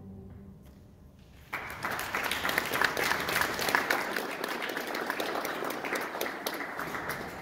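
Audience applause breaking out suddenly about a second and a half in, once the choir's singing has died away, a dense steady clapping that tapers off near the end.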